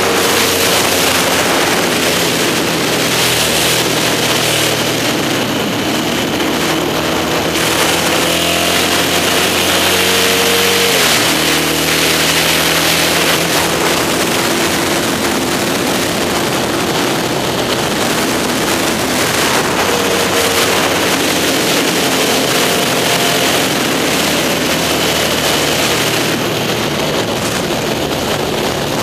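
Vintage racing sidecar outfit's Yamaha XS650 parallel-twin engine running hard at speed under heavy wind rush on the microphone. The engine note rises and falls through the lap, with a sharp drop about eleven seconds in.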